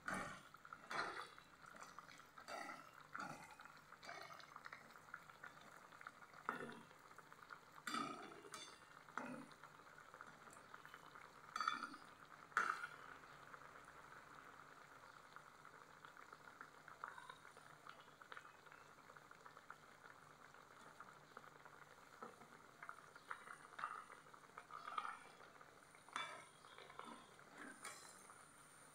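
Hot oil bubbling faintly around a rice-flour puri as it deep-fries in a pan, with a metal spatula clicking and scraping against the pan again and again, most often in the first half.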